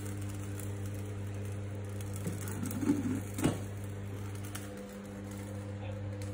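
A steady low mechanical hum from a running household appliance, with two short knocks about three seconds in.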